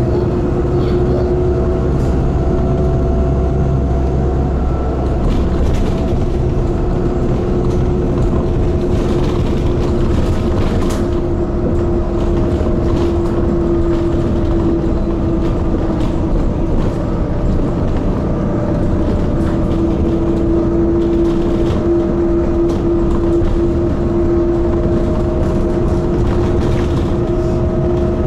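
Inside a moving city bus: the steady drone of its motor and road rumble, with a constant hum that wavers slightly in pitch.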